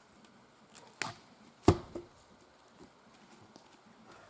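Two sharp knocks about two-thirds of a second apart, the second louder and ringing briefly.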